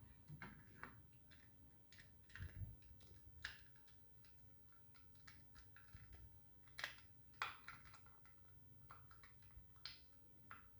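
Faint, irregular clicks and taps of the small plastic parts of a wired optical mouse being handled and fitted back together.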